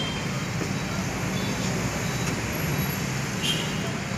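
Street traffic: cars driving slowly past close by, a steady low engine and tyre rumble. A brief high-pitched beep sounds near the end.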